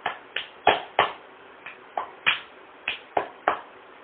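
About ten sharp clicks and snaps, irregularly spaced, from a small object being handled and fiddled with between the fingers.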